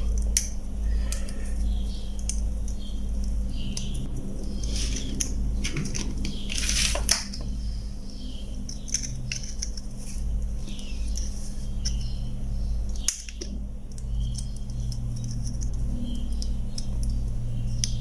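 Light clicks and small scrapes of a car remote key's push switch and circuit board being handled and fitted into place, with a longer scrape about seven seconds in, over a steady low hum.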